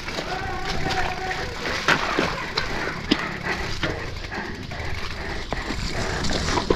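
Mountain bike rattling over a rocky trail, with a steady rushing noise and several sharp knocks as the wheels hit rocks.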